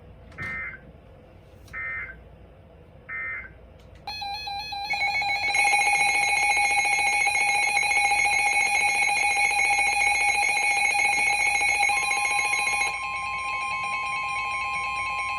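Emergency Alert System data and alert tones. Three short electronic bursts, evenly spaced about a second and a half apart, close the previous warning; about four seconds in, a loud, rapidly warbling electronic alert tone starts and sounds for roughly nine seconds. Near the end a single steady tone takes over.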